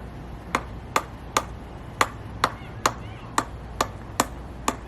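A handheld chiropractic adjusting instrument clicking as it is fired repeatedly, about two or three sharp clicks a second.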